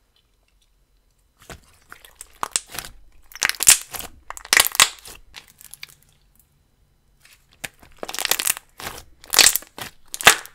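Ultra-thick slime mixed with jumbo beads being stretched apart and squished by hand, giving sticky crackling and tearing sounds. They come in two spells, starting about a second and a half in and again about eight seconds in, with a short lull between.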